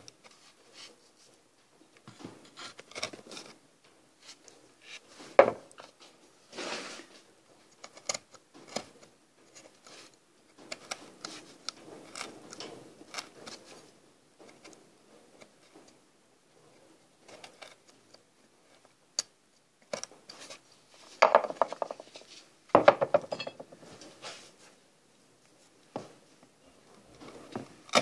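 Hand chisel cutting and paring wood: short, intermittent scrapes and light clicks of the steel edge in the grain. Two longer, louder scrapes come about three-quarters of the way through.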